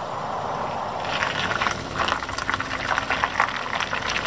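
Car tyres rolling slowly over gritty asphalt: a steady hiss that turns into a busy crackle about a second in.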